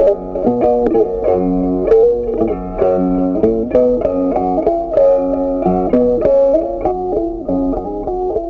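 Background music: a melody of short plucked-string notes over a steady beat.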